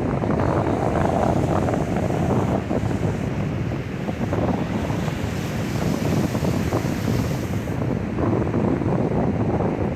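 Strong wind buffeting the microphone over the steady wash of ocean surf.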